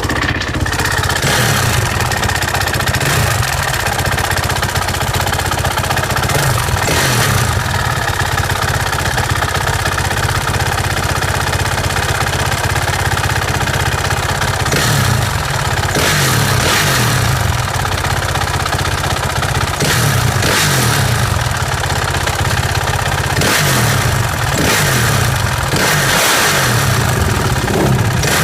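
2007 Suzuki RM-Z450 four-stroke dirt-bike engine idling and blipped up and back down about a dozen times, with a ticking noise that the owner cannot place and fears is a fault.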